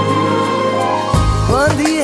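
Background music from a Hindi romantic film song. Held chords play, then about a second in a bass and drum beat comes in under a sliding, ornamented melody line.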